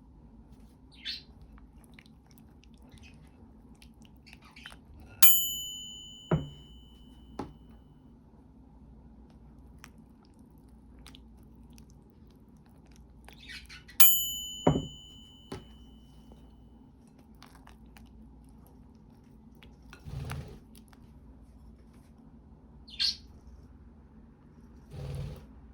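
Kitchenware clinking: two sharp ringing clinks about nine seconds apart, each dying away over about a second, with softer knocks and taps between them and a low hum underneath.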